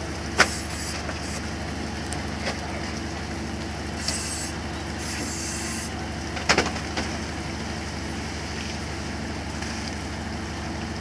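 Fishing boat's engine running with a steady low drone, with a few sharp knocks on deck, the loudest about half a second in and about six and a half seconds in, as crew brail anchovies with a dip net into wooden fish boxes.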